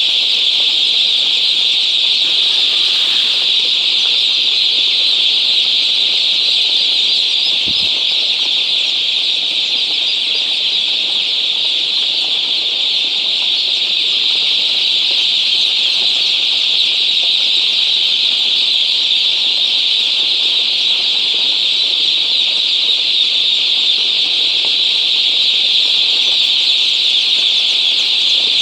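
Dense, continuous cheeping of a large flock of broiler chicks, a steady high-pitched chorus of countless overlapping peeps with no break. There is a brief low knock about eight seconds in.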